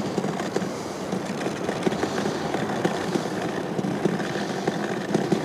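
Daiwa Millionaire multiplier reel being wound by hand: a continuous fast rattle of the gears and spool with many small clicks.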